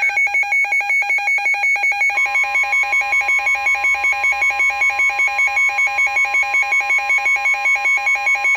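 Weather radio sounding a warning alarm: a rapid, even electronic beeping of about five beeps a second, joined about two seconds in by a steady tone near 1 kHz, the National Weather Service warning alert tone that comes before a severe thunderstorm warning is read.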